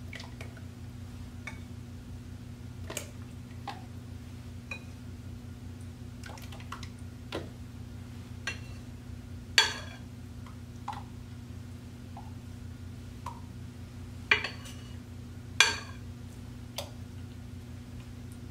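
Metal ladle clinking and tapping against a glass mixing bowl and plastic cups as soap batter is ladled out, a scattered knock every second or so, with three louder ringing clinks, one about halfway and two near the end. A steady low hum runs underneath.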